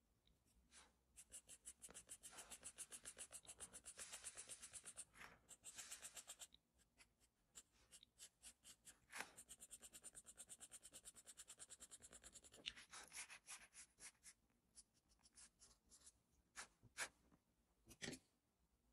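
Charcoal pencil scratching faintly on paper in quick back-and-forth shading strokes, several a second. It comes in two long runs with a short pause between, followed by a few separate strokes near the end.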